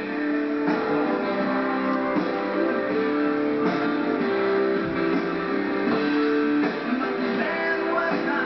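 Background music of sustained chords that change every second or two.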